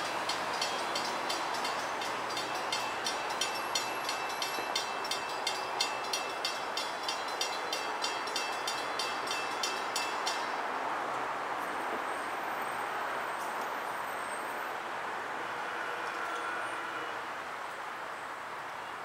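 Grade-crossing warning bell ringing in a steady beat, a little under two strikes a second, that stops about ten seconds in, over a steady train rumble that fades toward the end.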